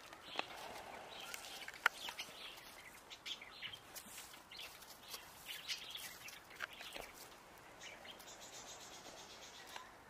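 Faint outdoor ambience in heavy falling snow: scattered light ticks and small high chirps, with one sharper click about two seconds in.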